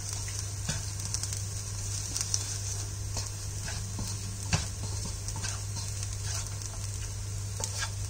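Cooked rice being stirred and turned with a spatula in a nonstick frying pan over heat. A light, steady sizzle runs throughout, with scattered short scrapes of the spatula against the pan, the sharpest about halfway through, over a steady low hum.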